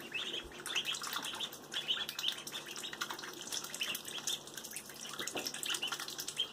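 Ducklings peeping over and over, with light splashing and dabbling as they swim and feed in a shallow tub of water.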